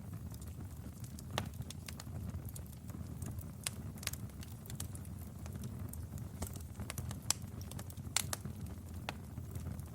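Wood fire burning in a fireplace: a steady low rumble of flames with irregular sharp crackles and pops, a few louder snaps scattered through.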